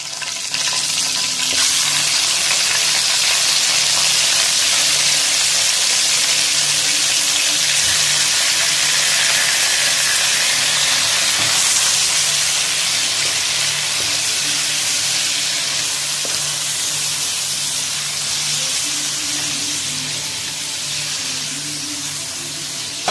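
Raw bone-in chicken pieces sizzling loudly in hot oil with fried chopped garlic, stirred around the pan with a spatula. The sizzle jumps up about half a second in as the chicken goes into the oil and eases off slightly near the end.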